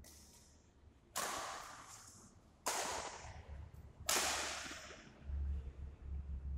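Badminton rally: three sharp racket strikes on the shuttlecock about a second and a half apart, the loudest near the end coming from a jump smash, each ringing on in the echo of the hall.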